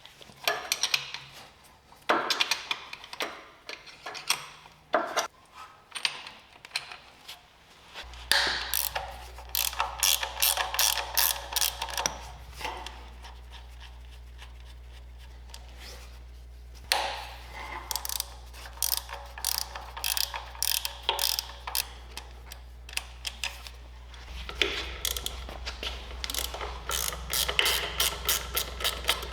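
Ratchet clicking in quick runs of rapid clicks, paused now and then, as bolts are worked loose on the truck. A steady low hum comes in about eight seconds in and carries on under the clicks.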